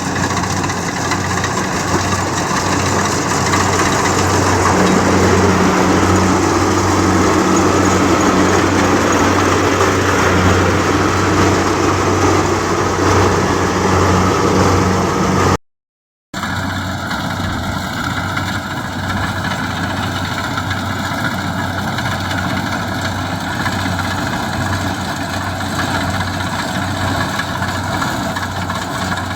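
Diesel engine of a Kubota DC-70G combine harvester running steadily. About halfway through the sound cuts out abruptly for half a second, then resumes a little quieter.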